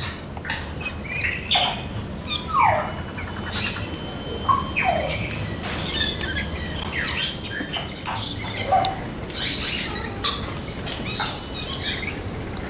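A flock of parrots calling at once: many overlapping chirps, squeaks and short shrill calls that slide down in pitch, over a steady high thin whine.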